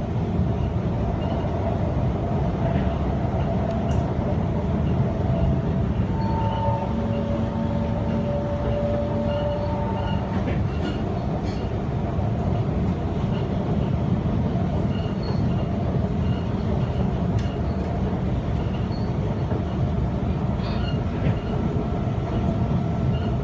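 Singapore MRT train running, heard from inside the carriage: a steady rumble of wheels and running gear. A few faint whining tones come and go, and a thin higher tone sets in near the end.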